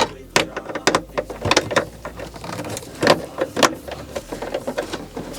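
Irregular clicks and knocks of hard plastic dashboard trim and a car instrument cluster being handled and worked loose.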